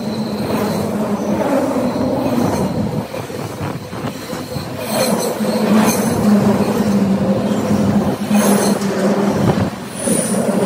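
Container freight train's wagons rolling past close by, a steady rumble of wheels on rail with a few sharper clacks around the middle.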